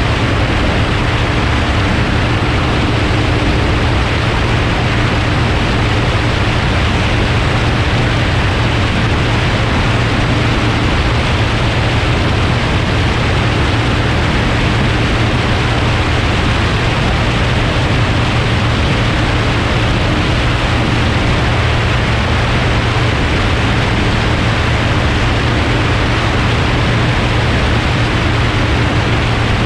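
Light floatplane in level cruise: a steady engine-and-propeller drone under a heavy, even rush of wind over a camera mounted beneath the wing.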